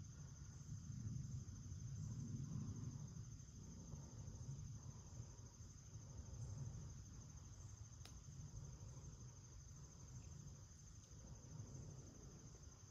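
Faint, steady insect chorus, a continuous high pulsing trill, over a low rumble.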